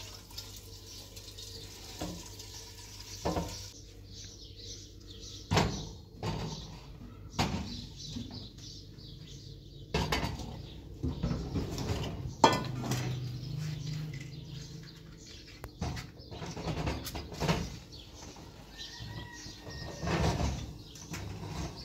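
Pots, dishes and utensils being handled during cooking: irregular clinks and knocks, a few louder clatters among them.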